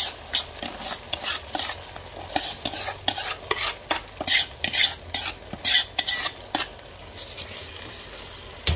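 A steel ladle repeatedly scraping and clinking against a metal tray as raw rice is scooped up and tipped into a steel cooking pot, a stroke every half second or so. The strokes ease off near the end and are followed by a low thump.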